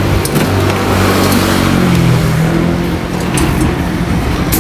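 A motor vehicle engine running, its pitch rising a little about two seconds in, with a few sharp clicks over it.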